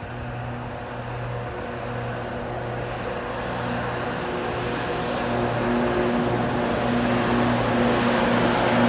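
Sleeper train locomotive drawing slowly into the station. Its steady hum, made of a few level tones over a broad rumble, grows louder as it nears.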